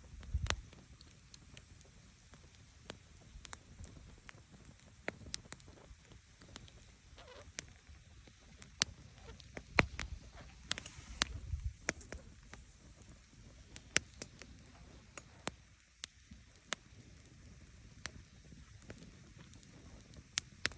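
Wood campfire crackling: irregular sharp pops and snaps over a faint hiss, with a few dull low thumps about half a second in and again around the middle.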